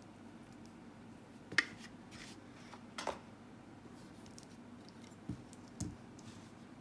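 Handling noises from unboxing a smartphone: a few short clicks and scrapes over a faint steady hum, the sharpest about a second and a half in, another around three seconds, and two more near the end.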